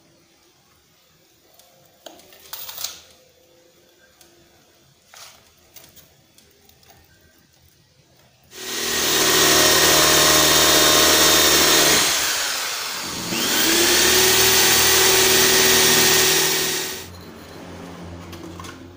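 Corded electric drill boring a hole through a wooden board, starting about eight seconds in. It runs steadily for about three and a half seconds, winds down briefly and spins back up, then runs about three seconds more before stopping.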